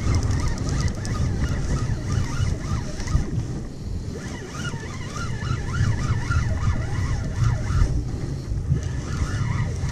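Wind buffeting the camera microphone on open sea, with sea water washing around a kayak. Faint wavering high-pitched calls come and go in the middle.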